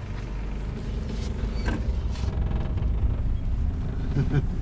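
Vehicle engine running: a steady low rumble.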